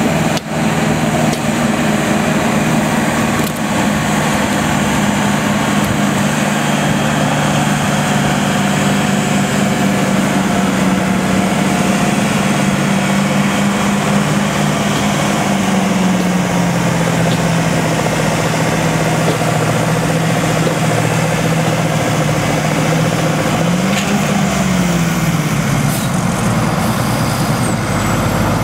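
Turbocharged Farmall 400 tractor engine pulling a weight-transfer sled under load, running steadily. Its note drops about halfway through, then briefly rises and falls again near the end.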